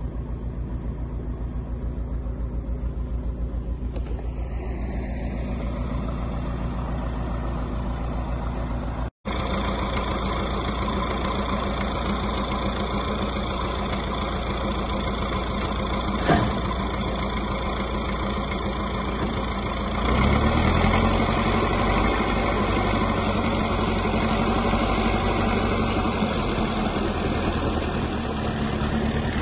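Engine of a front-end loader running steadily. It grows louder and deeper about two-thirds of the way through.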